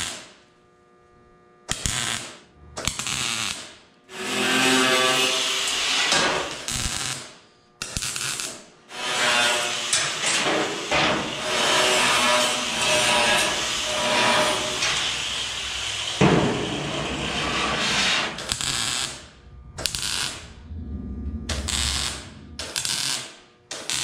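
Short bursts of MIG welding alternating with an angle grinder grinding down welds on steel roof bows. The sound is cut together in quick pieces that start and stop abruptly.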